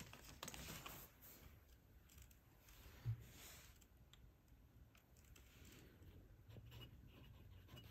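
Near silence with faint small clicks as a glass dip pen is dipped in an ink bottle, with a soft thump about three seconds in. Near the end the glass nib starts scratching faintly on paper.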